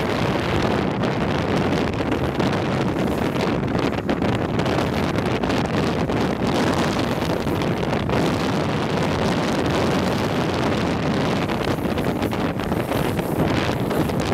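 Wind buffeting the camera microphone at downhill-skateboarding speed: a constant, steady rushing noise.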